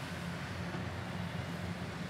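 Large diesel engine of heavy earthmoving equipment running with a steady low drone.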